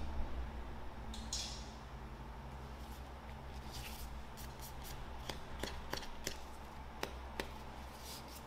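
Light handling sounds of silicone spatulas being picked up, bent and moved over a silicone baking mat: a brief swish about a second in, then a scatter of soft clicks and taps, over a faint steady low hum.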